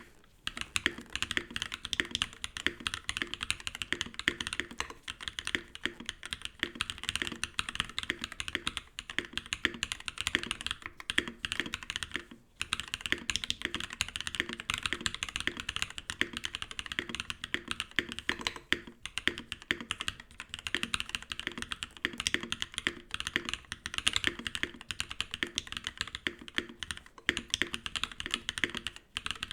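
Mechanical keyboard with lubed POM linear switches being typed on fast and continuously, a steady stream of keystroke clacks with a couple of brief pauses. The case has no foam inside.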